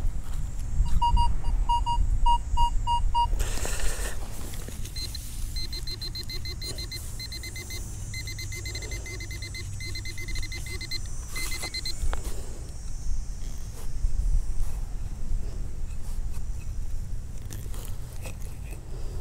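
Electronic beeping from metal detecting gear homing in on a buried coin: a run of short beeps at one pitch, about three a second, then a longer run of higher-pitched pulsing beeps. Brief scraping noises and a low wind rumble lie underneath.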